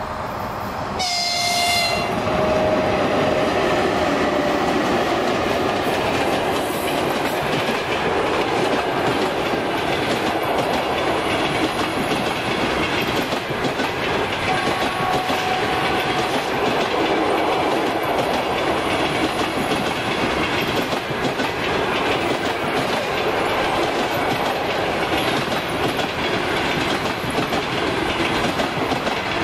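EP1M electric locomotive sounds a short horn blast about a second in. The locomotive and its passenger coaches then roll past close by, steady and loud, with wheels clattering over the rail joints.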